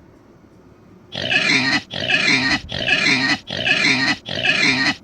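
A pig making a quick run of rough, noisy calls, a little more than one a second. The calls start about a second in, after a faint hiss.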